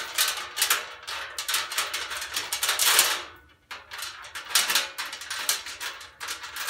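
Short metal chains clinking and rattling against the sheet-steel body of a welding cart as they are fitted to the cylinder rack, a run of irregular clatters with a brief pause about three and a half seconds in.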